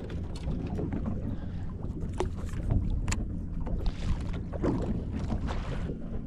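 Wind buffeting the microphone on a small open boat, a steady low rumble with water moving around the hull. A few sharp clicks, the clearest about two and three seconds in.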